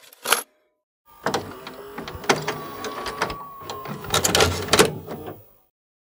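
VHS video recorder's mechanism: a few clicks as the cassette goes in, then the motor whirring with clicks and clunks for about four seconds as the tape loads and rewinds, stopping suddenly.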